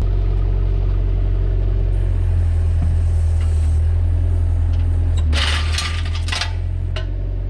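Bobcat 331e compact excavator's diesel engine running under hydraulic load, its pitch shifting as the machine works. About five seconds in, a burst of rushing, hissing noise lasts a little over a second.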